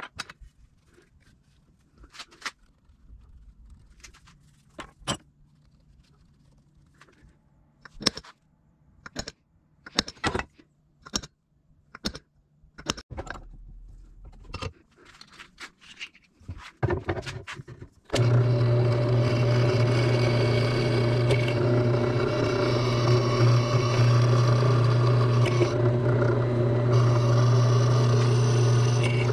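Scattered metal clinks and knocks of parts and hand tools being handled, then about 18 seconds in an electric power tool starts and runs steadily at one speed, much louder than the clinks.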